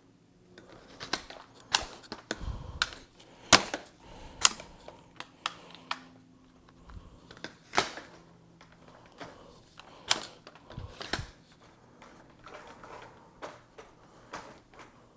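Irregular clicks and knocks of things being handled, with a couple of low thuds, some a few seconds apart and some in quick clusters.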